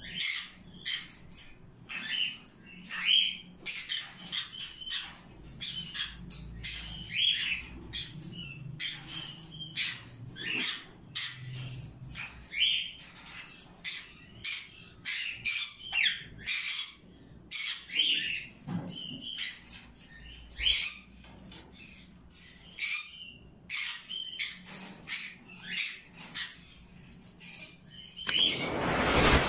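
Caged parrots, ring-necked parakeets and conures, giving many short, sharp squawks and chirps in quick succession. Near the end a louder ringing sound comes in over them.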